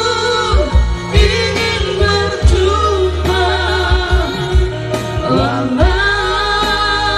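Live singing through a PA by a man and a woman on handheld microphones, with held notes that waver in pitch, over electronic keyboard accompaniment with a steady low beat.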